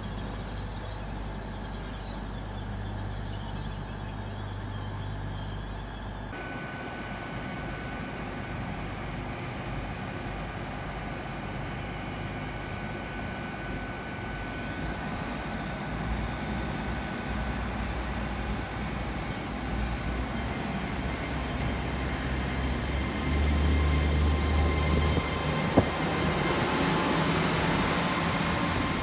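Great Western Railway bi-mode Intercity Express Train on its underfloor diesel engines: first a steady low hum while standing, then the train moving off, the rumble growing louder and a high whine rising in pitch as it accelerates. One sharp click near the end.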